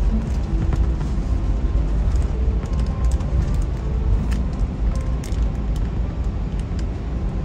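Steady low rumble of airliner cabin noise, with background music carrying short melodic notes over it and a few faint clicks.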